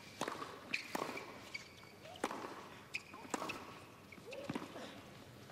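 Tennis rally on a hard court: sharp racket strikes on the ball, roughly one a second, with a short grunt from a player about four and a half seconds in.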